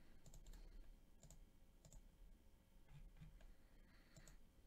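Near silence with faint, scattered clicks of a computer mouse and keyboard.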